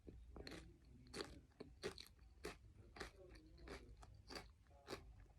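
Salt and vinegar potato crisps being chewed close to the microphone: a quick, irregular string of crisp crunches, about three a second.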